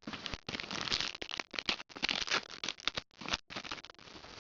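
Crinkling and crackling of a foil trading-card booster pack being handled and torn open, with cards sliding and flicking, a quick run of small crackly clicks broken by two brief silent gaps.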